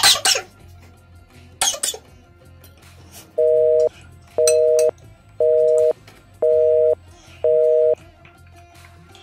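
A woman coughing from spicy food at the start and again about two seconds in. Then a telephone busy signal: five steady two-tone beeps, each about half a second long, one a second.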